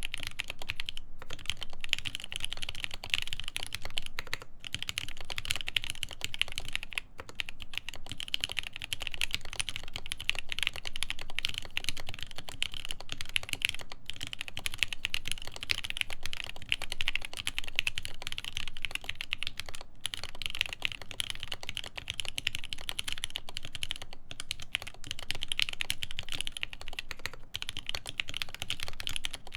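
Continuous typing on a custom mechanical keyboard with lubed Everglide Tourmaline Blue v2.5 switches, a polycarbonate plate and GMK keycaps: a dense, steady stream of key clacks, broken by a few brief pauses.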